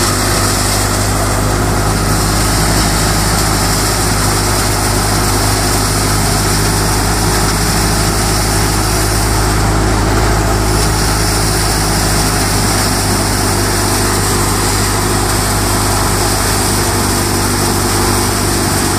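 Tractor engine and the PTO-driven thresher it powers running steadily at working speed while dry crop plants are fed into the threshing drum. The sound holds steady and loud, with no pause or change.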